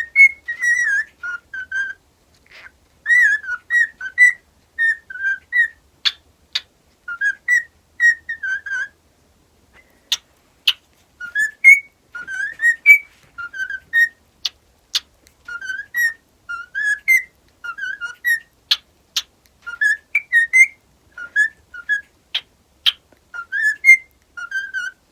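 A pet cockatiel whistling its song: repeated phrases of short warbling whistled notes with brief pauses between them, and a few sharp clicks scattered through.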